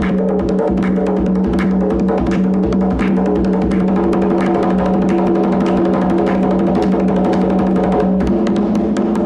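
Drum music: fast, dense drumming over a steady held tone.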